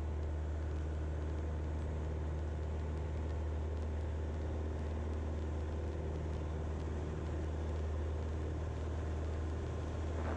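Single-engine Grumman light plane's piston engine and propeller running steadily at takeoff power during the takeoff roll, heard from inside the cockpit as an even, low drone.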